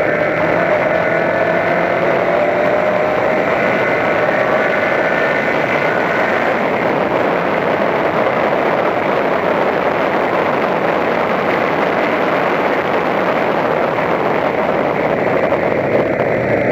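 Toyota Corolla Levin race car at speed, heard onboard: the engine note drifts slowly lower over the first few seconds, then is buried under a dense, steady rush of wind and road noise.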